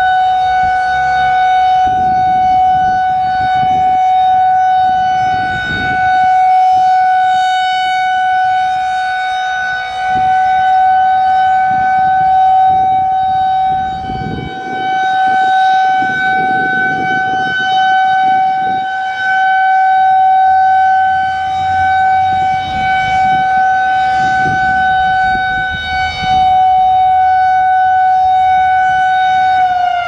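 Federal Signal 2001-130AC rotating electromechanical warning siren sounding a steady alert tone as a test, its level swelling and dipping as the horn turns. Right at the end the pitch starts to fall as the siren winds down. The motor runs without brush trouble, as the uploader judges it.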